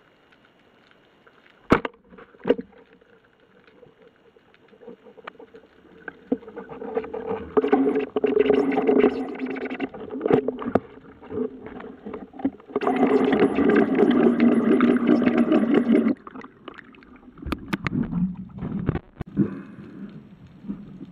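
Underwater noise picked up by a camera mounted on a speargun. Two sharp knocks come early, then long stretches of rushing, churning water noise; the loudest lasts about three seconds and cuts off suddenly, and scattered knocks follow.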